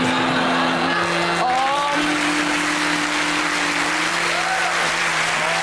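Studio audience applauding, over a sustained music chord, with a brief voice or two calling out.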